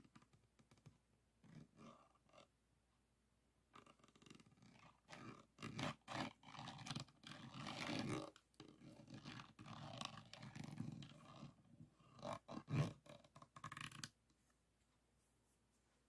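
A stick rubbed and scraped back and forth across the rows of small round resin drills of a finished diamond painting, making irregular scratchy rasps. The strokes are sparse and soft at first, come thick and louder after about four seconds, and stop near the end.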